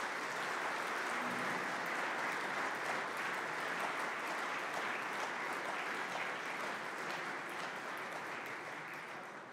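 Audience applauding steadily, the applause dying down near the end.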